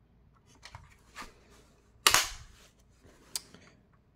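Handling sounds from a 1:18 diecast Ferrari SF90 Spider model: a few light plastic-and-metal clicks, and one louder sharp snap about two seconds in, like a part of the model being pushed shut.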